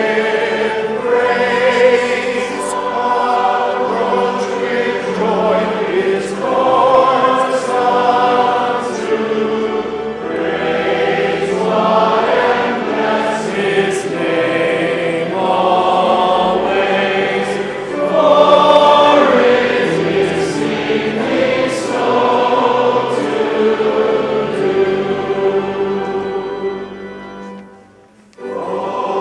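Choir singing a sacred piece in full voice, with sustained phrases. The singing stops briefly near the end, then starts again.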